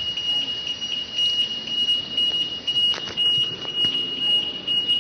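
A continuous high-pitched electronic alarm tone held on one pitch, over a steady hiss of background noise, with a faint click about three seconds in.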